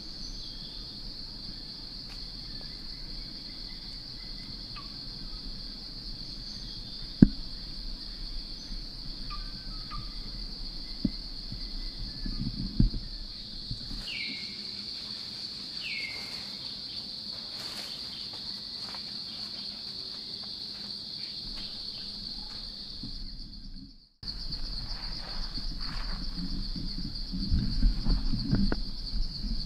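A steady, high-pitched chorus of forest insects, broken by a brief gap a little before the end. A few soft thumps and rustles sound beneath it, and two short falling calls come about halfway through.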